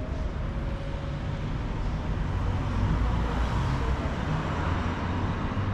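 Steady street traffic noise, swelling as a vehicle passes about halfway through.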